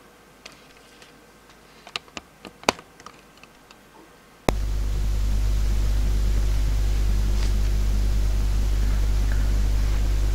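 A few faint light clicks and rustles. About halfway through, a steady low electrical hum with hiss starts suddenly and runs on.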